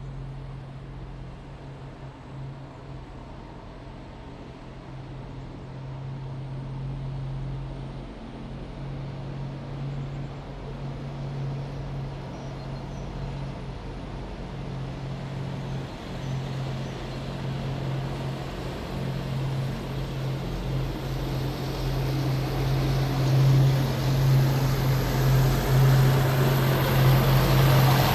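Heavy military vehicles approaching on a city road: a steady low engine drone with engine and tyre noise building and getting steadily louder toward the end, a faint high whine rising in over the last few seconds.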